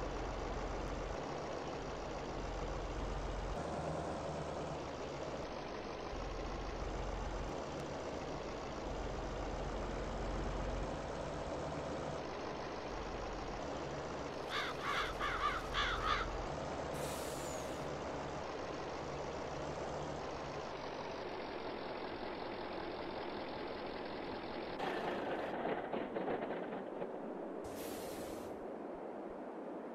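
Heavy truck's engine running steadily, with brief hisses of released air shortly after the middle and again near the end, typical of air brakes. A quick run of clatters sounds around the middle, and the deep engine rumble drops away about two-thirds through.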